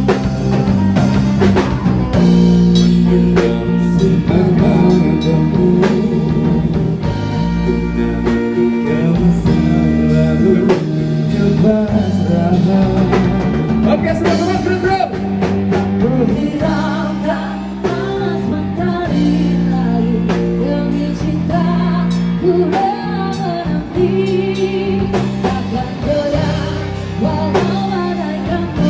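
Live band performing a song: male and female singers over electric guitars and a drum kit, played through a small PA.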